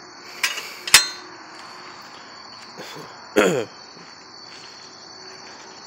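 Crickets chirping in a steady high trill. About a second in, two sharp metallic clicks, the second ringing like a clank, and a little past halfway a short squeak that falls quickly in pitch.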